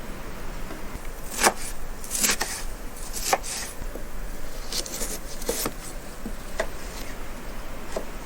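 A run of sharp knocks and clacks, about nine of them at irregular intervals, over a steady low hiss.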